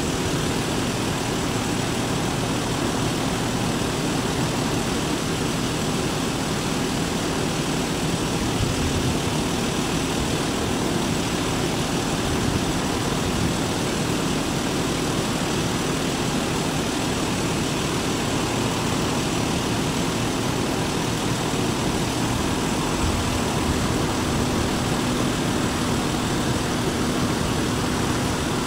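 A car engine idling steadily, a low hum under an even hiss.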